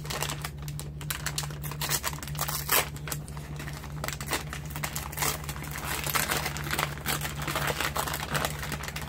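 Plastic packaging crinkling and crackling as small bags of craft embellishments are handled and opened, with a steady low hum underneath.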